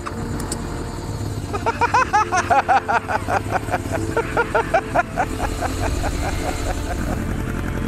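1987 Yamaha FJ1200's air-cooled inline-four engine idling steadily, just fired up for the first time after about 20 years in storage. From about a second and a half in until near the end, a quick run of loud, high chirping notes, several a second, sits over the engine.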